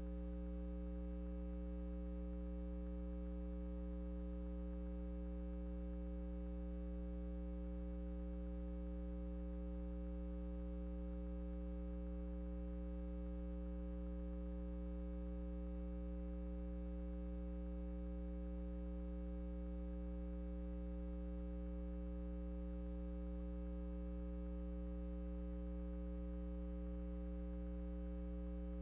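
Steady electrical mains hum: a low, unchanging buzz of stacked tones with no music or speech over it.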